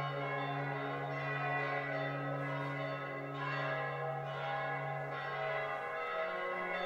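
Trombone holding a long, steady low note that moves up to a higher note about six seconds in.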